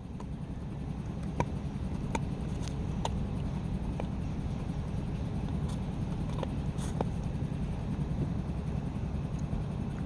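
Scattered sharp clicks and cracks of a bone being chewed, about a dozen at uneven intervals, over a steady low rumble.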